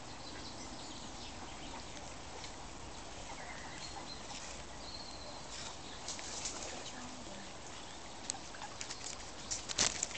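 European robin singing faintly in thin, high whistled phrases over steady background noise. A cluster of sharp clicks comes near the end.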